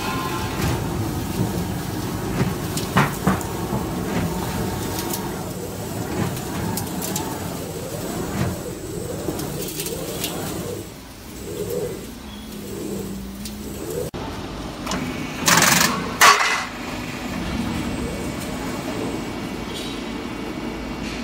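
Corrugated roof-sheet roll forming machine running, its rollers pressing colour-coated steel sheet into corrugations: a steady low drone. Two short, louder clatters come about three-quarters of the way through.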